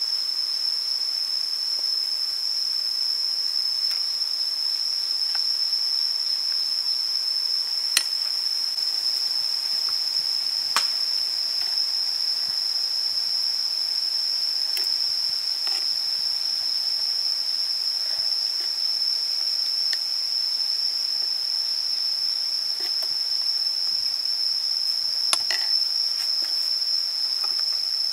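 Steady, high-pitched drone of an insect chorus, unbroken throughout. A few sharp clicks of a spoon against the dishes stand out briefly, about three times.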